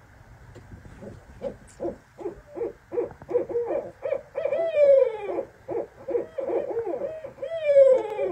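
Two barred owls calling together: a run of short hoots that comes faster and louder from about a second in, broken twice by a long call that slides down in pitch.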